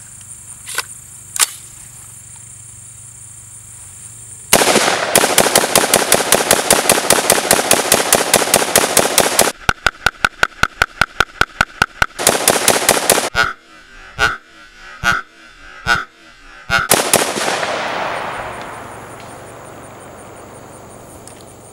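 AR-15 rifle firing a rapid string of .223 full-metal-jacket rounds, a magazine dump. The shots start about four seconds in and run fast for several seconds, then come as a few separate shots, with a last loud stretch that dies away as an echo.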